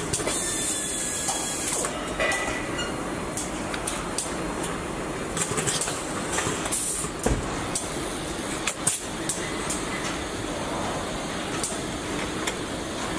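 Car assembly-line noise: a steady mechanical din with scattered clicks and clanks, and a short hiss about half a second in.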